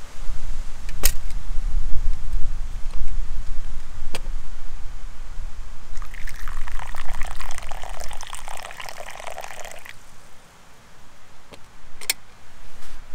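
Water poured from a metal camp kettle into a wooden kuksa cup, a trickling splash that lasts about four seconds in the middle, over a low rumble of wind on the microphone. A few sharp clicks come from handling the kettle, the last near the end.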